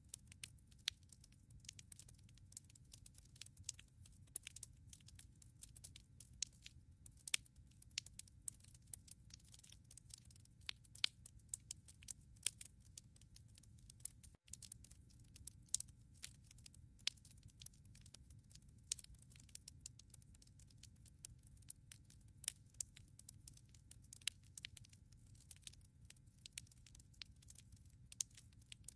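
Wood logs burning in a fireplace, crackling with dense, irregular sharp pops and snaps over a low, steady rumble of the flames. The sound cuts out for an instant about halfway through.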